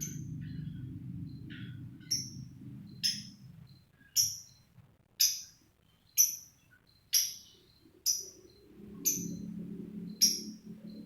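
Lovebird giving short, sharp, high-pitched calls, one about every second from about two seconds in, over a low steady hum that fades out midway and comes back near the end.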